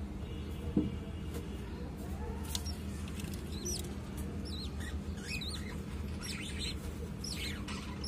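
Budgerigars chirping: many short, high chirps that rise and fall, coming thick and fast from about three and a half seconds in, over a steady low hum. A single knock sounds about a second in.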